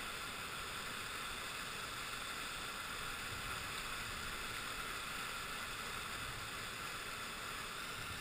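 Steady rush of river whitewater, an even hiss without breaks.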